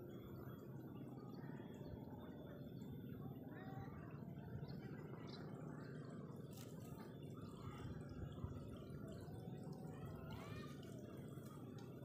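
Faint outdoor ambience over open fields: a low steady rumble with scattered short chirps and calls, and a few faint clicks.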